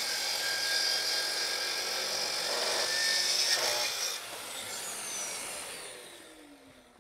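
Festool plunge-cut track saw ripping a straight edge along a maple slab, a steady high-pitched cutting noise. About four seconds in the cut ends, and the blade spins down with a falling whine.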